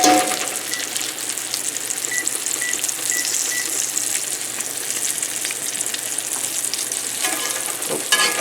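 Potato pancakes sizzling as they fry in a cast iron pan, a steady crackling hiss. In the first few seconds a kitchen timer gives five short high beeps as it is set.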